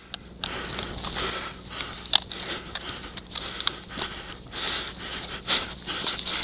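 Footsteps and gear rustle of an airsoft player moving on foot over frost-covered grass, with breathing and a few sharp clicks, close to a camera the player is wearing.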